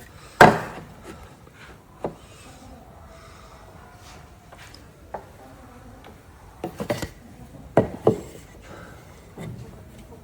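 Scattered knocks and clacks of wooden pieces being handled and set down on a workbench, with light rubbing between them; the loudest knock comes about half a second in, and a quick cluster follows near the end.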